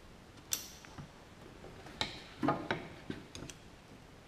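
A string of sharp clicks and knocks from hand work on hose clamps on the hydraulic lines of a Kubota U17-3 mini excavator: one about half a second in, then a quick cluster from about two to three and a half seconds in.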